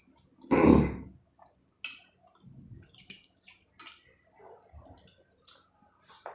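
Close-up eating sounds: wet chewing with scattered small clicks and squishes of food. About half a second in there is one loud, low, muffled thump, the loudest sound here.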